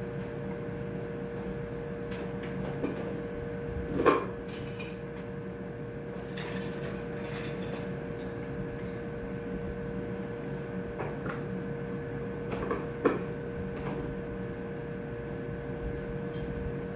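Steady electrical hum with two sharp metal knocks several seconds apart and a short run of light clinking and scraping between them: small elevator brake parts being handled and set down during a teardown.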